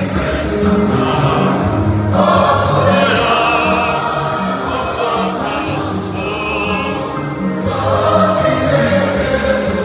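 A choir singing a church hymn over a low accompaniment of held notes that change every second or so.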